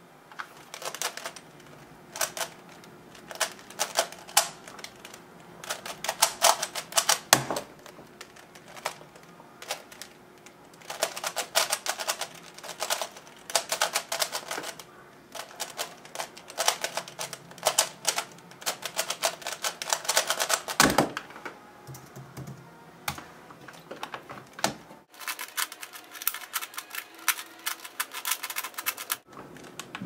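FII 3x3 speedcube, lubricated with shock oil, being turned fast in one hand: rapid runs of plastic clicking and clacking from its layers, in bursts with short pauses. One heavier thump about three-quarters of the way through.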